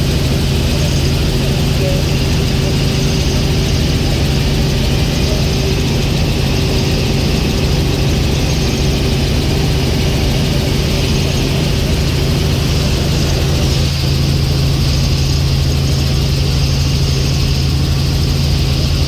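Helicopter engine and rotor running steadily in cruise, heard from inside the cabin as a loud, even low hum with a hiss over it.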